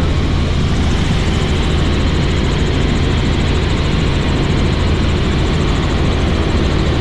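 Steady drone of a helicopter's engine and rotors in flight, with a low hum underneath.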